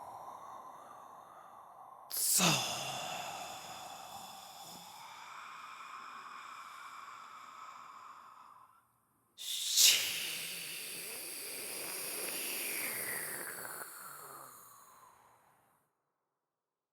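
Scary processed whisper sound effect: two sudden breathy whooshes about eight seconds apart, each trailing into a long ringing, echoing tail. The second fades out about a second before the end.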